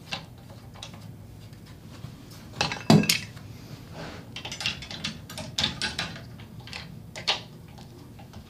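A series of metal clanks and clicks as steel hopper extension arms are fitted onto a Stinger Gateway spreader's frame, the loudest clank about three seconds in.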